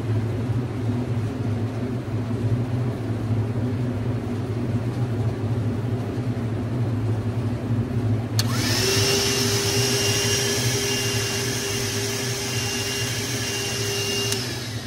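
A steady low hum runs throughout. About eight seconds in, a cordless hand vacuum fitted with a 3D-printed sampler nose switches on suddenly at a hive top, drawing a sample of bees. It runs for about six seconds with a steady whine and hiss, then cuts off.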